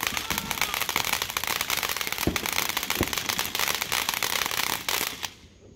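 Ground fountain firework spraying sparks with a dense, continuous crackling that cuts off sharply about five seconds in.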